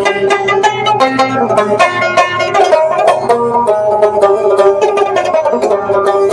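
Rubab, a plucked lute, playing a fast melody of quick plucked notes.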